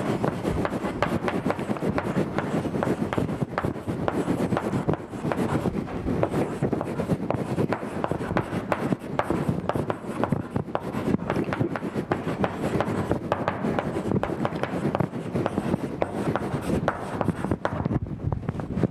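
Chalk writing on a blackboard: a dense run of short scratching and tapping strokes as a sentence is written out.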